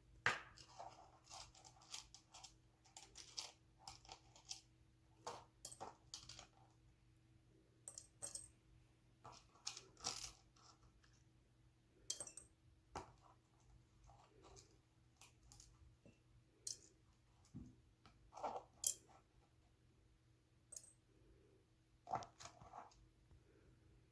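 Scattered light clinks, taps and knocks of ingredients and utensils being handled while making a homemade onion cough syrup, each short and separate with quiet between. The loudest come right at the start and a little past halfway. A faint steady hum runs underneath.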